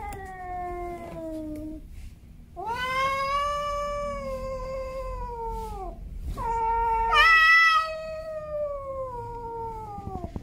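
Male domestic cat yowling: three long, drawn-out yowls, each sliding down in pitch at its end. The third jumps up sharply about seven seconds in, where it is loudest.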